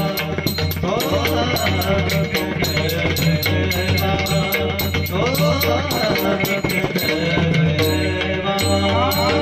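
Marathi devotional bhajan music, instrumental here: pakhawaj drumming with fast, steady metallic strikes of small hand cymbals over a sustained drone. Gliding melodic lines enter about a second in, again around five seconds, and near the end.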